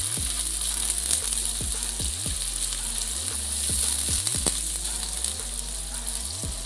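Chopped onions and ground spice pastes sizzling steadily in hot oil in a pan, while a silicone spatula stirs them around.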